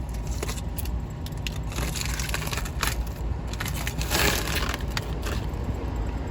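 Irregular crunching and scraping as a person moves over the dirt floor of a crawl space, loudest about four seconds in, over a steady low rumble.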